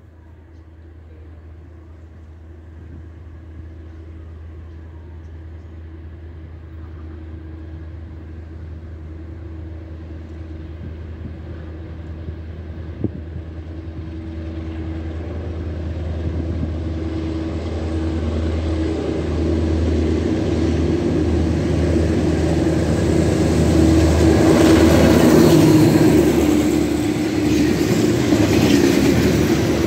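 TCDD DE 24000-class diesel-electric locomotive approaching and passing at the head of a freight train of tank wagons, its engine drone growing steadily louder. In the last few seconds the wagons' wheels rumble and clatter over the rails close by.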